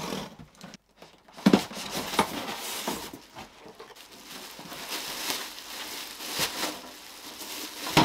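A boxed PC case being unpacked: cardboard and packing scraping and rustling, with a sharp knock about a second and a half in and a few lighter knocks after it.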